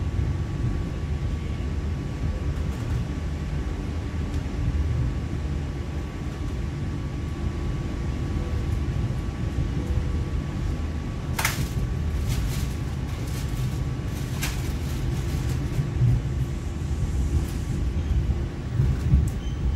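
Steady low rumble of a moving vehicle heard from inside, with a thin steady whine under it. A few brief sharp high sounds come around the middle.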